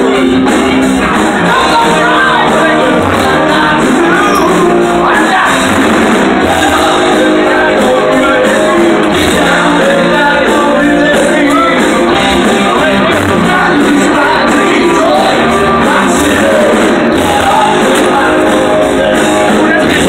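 Loud music with singing, playing continuously.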